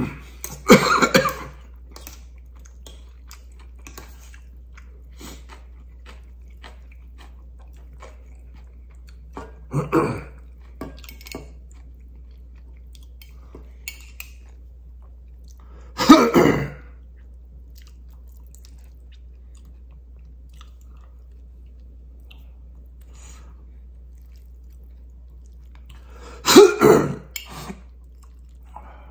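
A person eating instant ramyeon noodles with chopsticks: four loud slurps spaced several seconds apart, with soft chewing and faint chopstick and bowl clicks in between.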